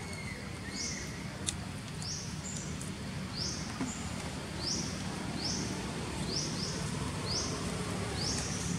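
Outdoor ambience with a high, short, rising chirp repeated about once a second, and one sharp click about a second and a half in.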